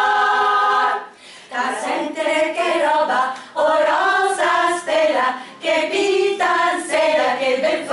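A small group of women singing a cappella: satirical anti-fascist verses sung in Italian. A held note ends about a second in, then the song goes on in short phrases with brief breaths between them.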